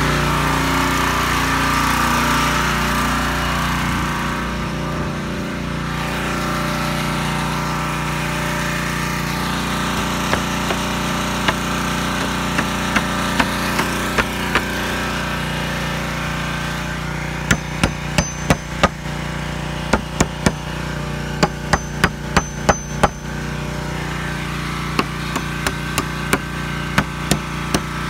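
Claw hammer striking nails into a wooden fence board with sharp metal-on-metal blows. The blows are scattered at first, then come in quick runs of strikes in the second half. A steady low mechanical hum runs underneath.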